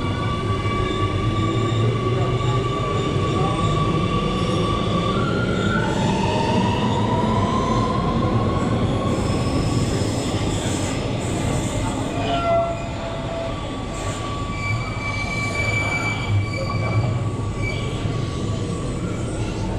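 Metro train pulling out of an underground station and accelerating away: its motors whine in tones that rise in pitch as it gathers speed, over a steady rumble of wheels on the rails.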